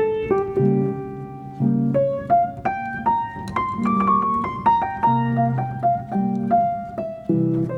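Solo piano music: gentle chords and a melody of single struck notes.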